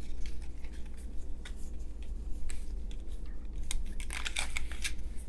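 Small cardboard sample boxes being handled and set down: scattered light taps and clicks with papery rustling, busiest about four seconds in.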